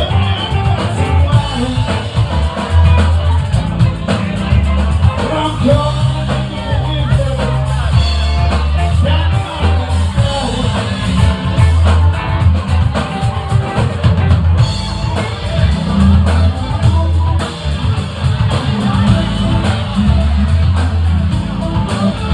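A live rock band playing loud, with electric guitars, a heavy bass line and a drum kit.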